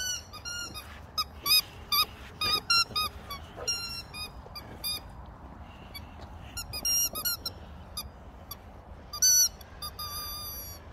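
Rubber squeaky dog toys squeaking as two boxer dogs chew on them: quick irregular runs of short, high squeaks, with a pause of a second or so around the middle and a dense flurry near the end.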